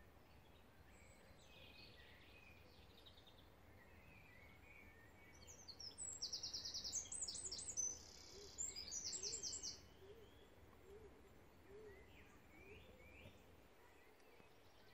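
Songbirds singing over a faint steady outdoor hiss, with a louder run of fast trilled phrases from about six to ten seconds in.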